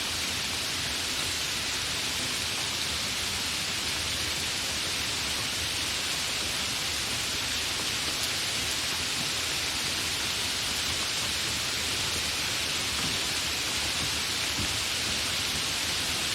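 Steady, continuous rain falling, an even hiss without distinct drops or breaks.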